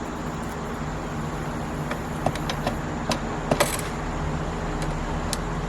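A scatter of small metallic clicks and rattles from a hand tool working the screws that hold a car's HVAC air box under the dash, starting about two seconds in, over a steady low background hum.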